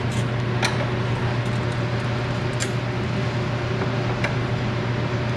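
Steady low mechanical hum with a few short, light metallic clicks of a wrench working on a brake-line fitting.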